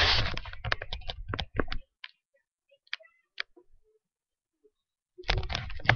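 Handling noise from a computer with a built-in webcam being moved: rubbing and knocking that thins out to a few separate clicks, then picks up again near the end.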